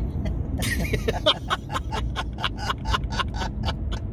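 A person laughing in a fast run of short bursts, over the steady road rumble of a moving car heard from inside the cabin.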